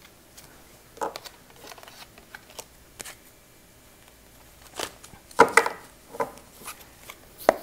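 Tarot cards being gathered up off a card stand and handled: scattered light taps, clicks and rustles, with a short cluster of louder clicks about five and a half seconds in.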